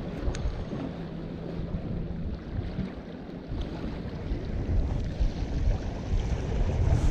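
Wind rumbling on the microphone, with the sea washing in behind it, a little louder near the end.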